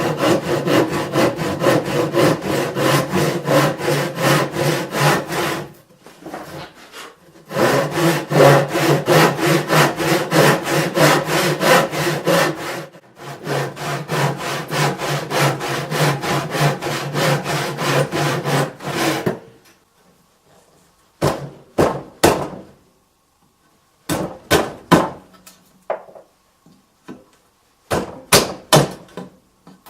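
Handsaw cutting into a treated pine 2x4 in quick back-and-forth strokes, in three runs with short pauses, cutting depth kerfs as guides for a chisel. Near the end the sawing stops and a scattering of sharp knocks follows.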